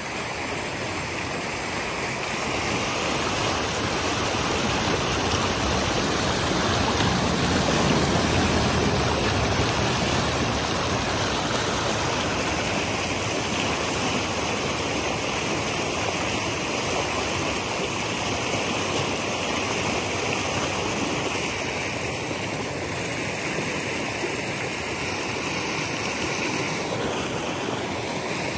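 Shallow, rocky creek rushing over stones: a steady rush of water that grows louder over the first several seconds.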